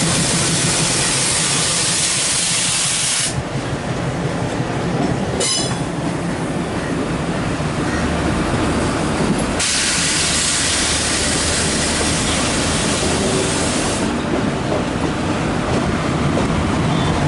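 A locomotive standing with a steady low hum, blowing off compressed air in two long loud hisses. The first cuts off about three seconds in; the second starts near ten seconds and stops abruptly about four seconds later. A brief clicking comes at about five and a half seconds.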